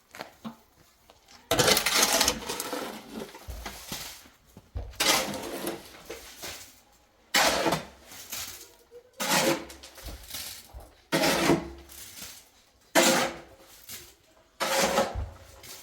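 A metal hand tool scraping through wet cement mortar in repeated strokes, seven in all, about one every two seconds, each starting sharply and trailing off.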